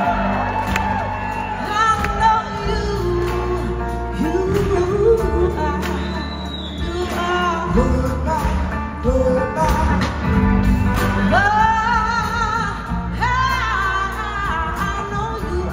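Live band music: electric guitars, bass and drums under several voices singing together, the lead line bending and holding long notes. Heard from the audience in a large hall.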